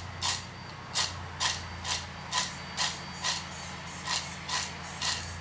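Crisp fried raw-jackfruit chips rattling and rustling in a bowl as they are tossed to coat them in seasoning, in an even rhythm of a little over two tosses a second, over a low steady hum.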